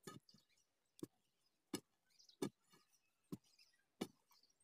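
A digging bar jabbed repeatedly into packed soil and roots: about six short, dull strikes, roughly one every 0.7 s.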